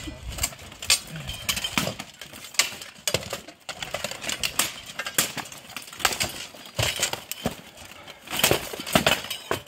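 Steel plate armour clanking and clinking as two armoured fighters grapple and strike, a string of irregular sharp metal knocks.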